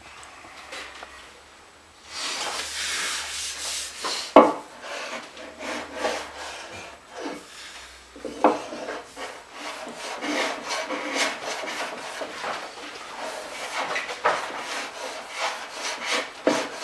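Small bronze hand plane taking repeated shavings off a hardwood slab, each stroke a rasping hiss, with a few sharp knocks between strokes. The strokes start about two seconds in. The plane is working out tear-out where the grain reverses at the slab's glue joint.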